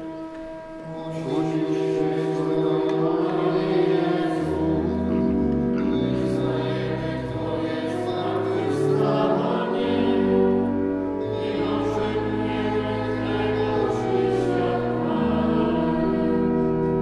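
Church choir singing slowly in long held notes, with a low bass accompaniment joining about four seconds in.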